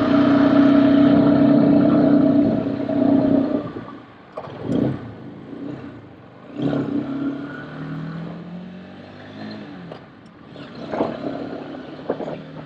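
Motor vehicles passing on a road: a loud, steady engine tone fades away about four seconds in, then more vehicles go by, one with its pitch falling as it passes.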